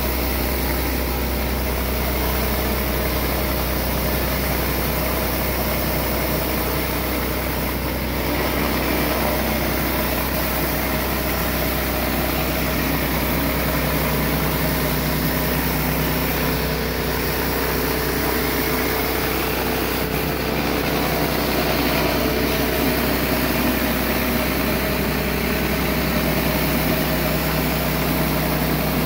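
Pressure washer running steadily while a 15-inch Surface Maxx surface cleaner sprays water onto concrete: a constant motor hum under the hiss of the spinning jets.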